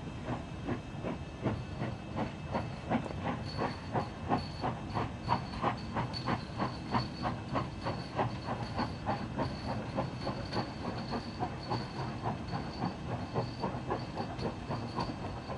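SY-class 2-8-2 steam locomotive hauling a passenger train, its exhaust beats coming in a steady rhythm of about three a second and easing slightly near the end.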